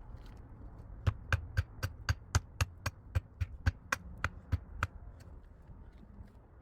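A quick, even series of about fifteen sharp blows, about four a second, starting about a second in and stopping a little before the end.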